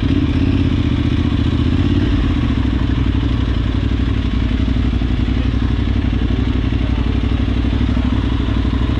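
Adventure motorcycle's engine running steadily at low revs while the bike rolls slowly, heard close up from the bike itself, with fast even firing pulses.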